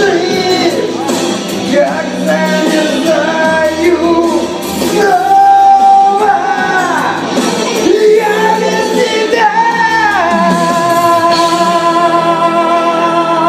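A song: singing over instrumental accompaniment in long, held notes. The last note is held from about ten seconds in until near the end.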